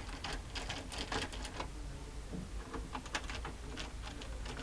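Irregular light clicks and rattles from the parts of a Canon MF3110 printer being handled, over a steady low hum.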